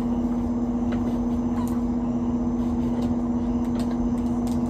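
Steady electric motor hum from a room appliance, with one strong low tone, and a few light clicks of plastic breast-pump parts being handled.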